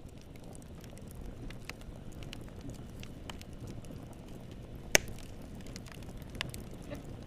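Wood fire crackling in a fireplace: a steady low rumble of burning with scattered sharp pops and snaps, one loud pop about five seconds in.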